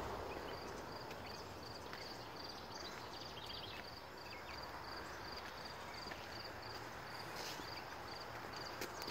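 A high chirp repeating evenly about twice a second over a steady outdoor hiss, with a few light footsteps on the stone path.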